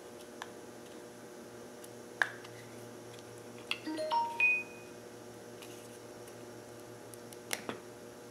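Plastic body sections of a 1997 90 HP Mercury outboard's impulse fuel pump clicking and knocking together as they are handled: a sharp click about two seconds in, a cluster of clicks with a couple of brief ringing tones around four seconds, and two more clicks near the end. A steady low hum runs underneath.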